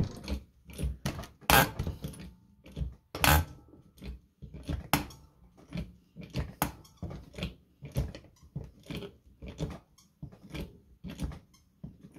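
Hand-pumped 5-ton hydraulic bearing puller being worked, a short clack about twice a second with each pump stroke, as its ram pushes on the motor shaft to draw the rear bearing off a Wascomat washer motor's armature.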